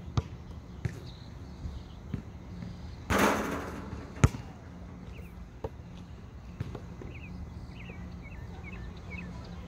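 Basketball bouncing on an asphalt court: a few dribbles, a short rush of noise about three seconds in, then one loud sharp smack a second later, followed by a few weaker bounces.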